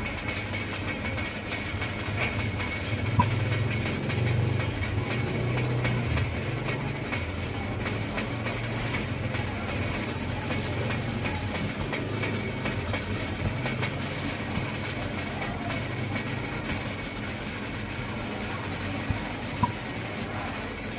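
Steamer pot over a high gas flame with its water boiling: a steady low rumble and hiss, with a couple of small clicks.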